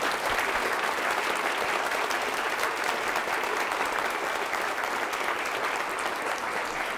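Theatre audience applauding steadily at the end of a talk, a dense patter of many hands clapping that eases slightly near the end.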